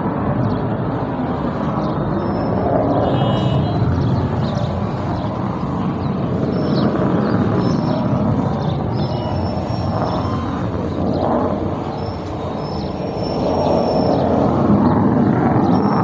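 Fighter jets flying overhead: a loud, steady jet-engine rumble that dips briefly and swells again near the end.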